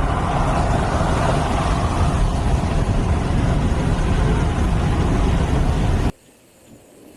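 A vehicle driving: steady, loud road and engine noise with a heavy low rumble. It cuts off abruptly about six seconds in, leaving only a quiet background.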